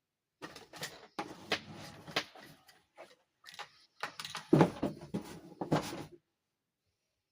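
Plastic dollhouse parts being handled and fitted together: a quick, uneven run of clicks, taps and knocks, the loudest knocks coming about four and a half to six seconds in.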